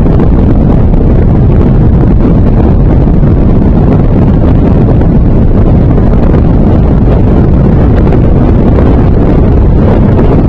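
Loud, steady wind rumble on the microphone of a small inflatable raft under way, with its 3.5 hp Sea King outboard motor running underneath.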